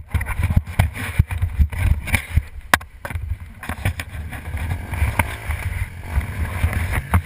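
Wind rumbling on a camera microphone, broken by many short knocks and rattles.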